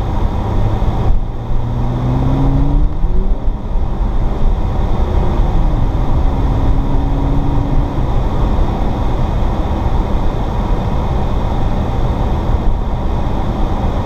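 Cabin sound of an Audi S4 driving on a snow-covered road: a steady rush of tyre and road noise over the supercharged V6 engine. The engine's pitch rises about three seconds in as the car accelerates, eases back a few seconds later and then blends into the road noise.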